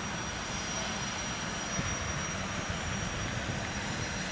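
Docked high-speed passenger ferry's engines running steadily: a constant low rumble with a thin high whine held on one pitch.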